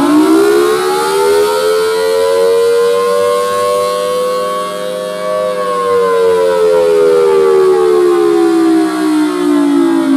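Federal Signal Thunderbolt 1003 siren running during a test: its tone climbs to a peak about five seconds in, then slowly falls, swelling and fading as the horn rotates.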